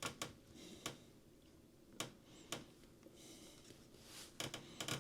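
Faint, scattered sharp clicks and light taps, about ten in all, several bunched together near the end, with a faint hiss between them.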